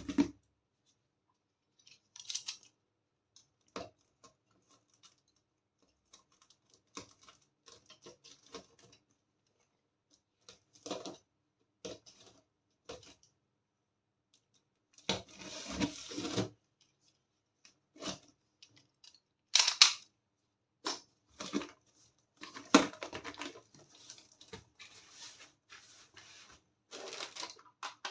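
Intermittent close-up unboxing handling sounds: rustling and tearing of packaging in short bursts, with sharp clicks and taps of small plastic toy pieces, separated by brief silences.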